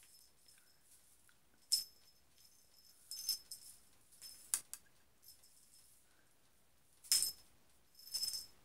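A cat's feather wand toy jingling in short bright bursts, about five times, as its small metal end is swung and batted about.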